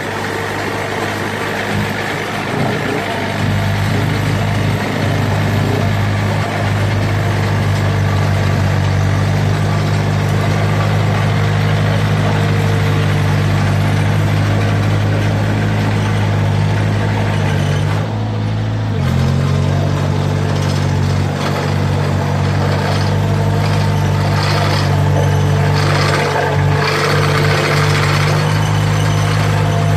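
Small tandem road roller's engine running steadily as the roller is driven. Its note shifts briefly about eighteen seconds in.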